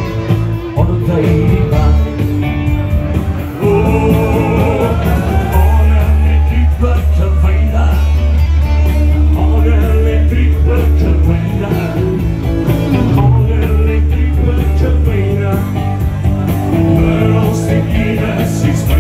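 Live rock band playing: electric guitars with a steady bass line and a male voice singing.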